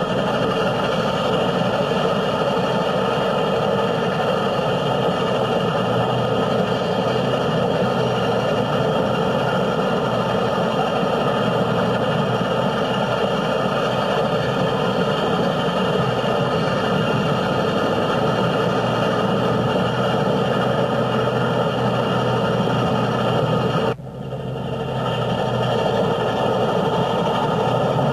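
Steady rumbling noise of a moving vehicle with no distinct beat. It cuts out abruptly about 24 seconds in and fades back up.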